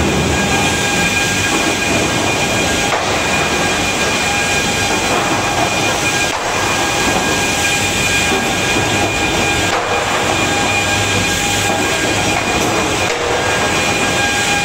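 Timber planing and stacking line running: conveyor rollers and chain transfers rumble steadily under several constant machine whines, with a few faint knocks every few seconds.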